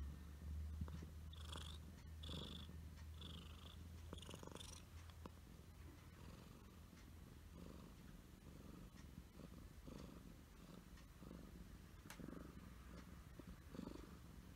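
Domestic cat purring softly close to the microphone, in a slow pulsing rhythm a little over once a second.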